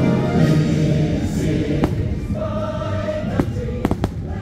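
Choir singing over show music, with a sharp firework bang about two seconds in and three more near the end.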